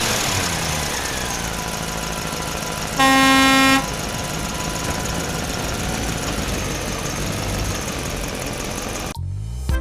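Steady motor-vehicle running noise with a single horn honk lasting under a second, about three seconds in, louder than the rest.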